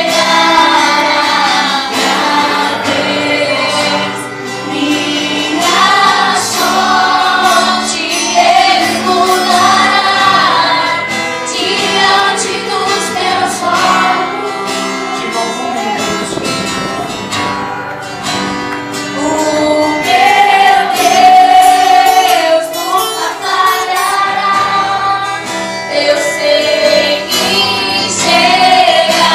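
Gospel worship song: several voices singing together in a melody over instrumental accompaniment with steady low notes.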